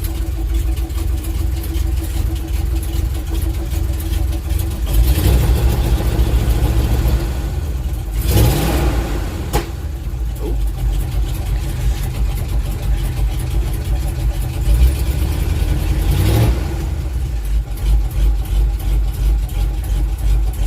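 Simca Marmon 4x4 truck's engine running just after it finally started, revs rising and falling a few times, about 5, 8 and 16 seconds in.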